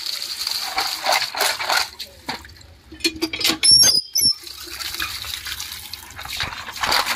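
Water pouring from a spout onto plastic toys in a plastic basket, splashing over them. The pour is heaviest over the first two seconds and again near the end, with a few sharp knocks in the middle.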